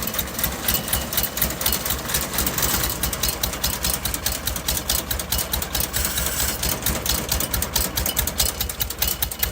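1960 Lincoln SA-200 welder's gasoline engine chugging in an uneven, rapid pulse during a hard start, not settling into a smooth run.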